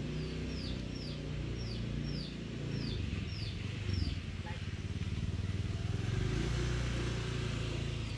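An engine runs off-screen with a low, steady drone. Over it a bird repeats a short, high, downward-sliding chirp about twice a second for the first three seconds or so.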